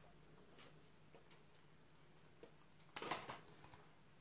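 Faint handling noise from a plastic wireless charger pad being picked up and turned over: a few light clicks, then a short louder rustle about three seconds in.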